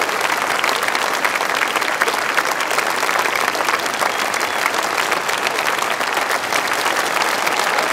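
Concert audience applauding steadily: dense, even clapping from a large crowd.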